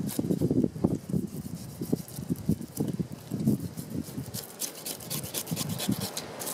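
A knife scraping and cutting along a pike's scaly skin on a wooden board. Irregular dull rubbing strokes give way, about four and a half seconds in, to a quick run of crisp, scratchy scrapes.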